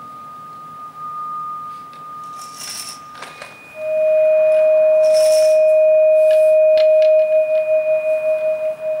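Sustained pure ringing tones, like a singing bowl or tuning fork. A thin high tone holds for about three seconds. Then a much louder, lower tone swells in and rings on, its loudness beginning to pulse in a slow wobble near the end.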